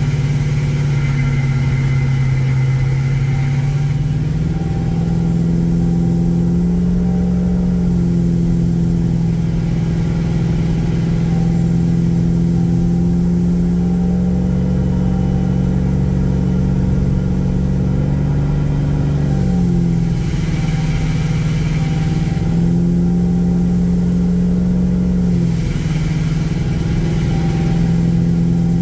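Torqstorm-supercharged V8 of a RAM R/T pickup running at cruising speed, a steady engine drone whose pitch steps up and down a few times as engine speed changes.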